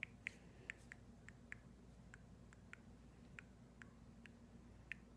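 Faint small clicks and pops from a soft dough slime being squeezed and folded between the hands, two or three a second at first, then fewer.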